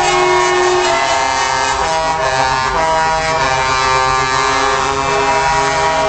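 Several truck air horns sounding at once, overlapping held tones at different pitches that shift every second or so.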